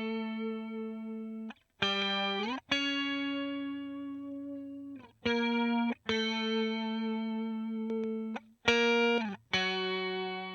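Clean electric guitar played through the Overloud TH3 amp simulator with an ensemble chorus effect: a slow line of held single notes, a couple of them slid up or down into the next note, each cut off short before the next.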